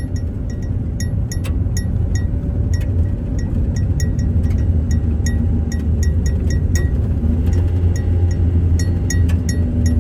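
Vehicle driving, heard from inside the cabin: a steady low road and engine rumble with frequent small metallic clinks and rattles, irregularly spaced, as loose metal jingles over a rough road.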